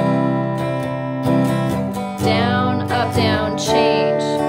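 Electric guitar strummed in a down-up pattern, playing open chords in a steady rhythm. A woman's voice sings the melody over it from about two seconds in.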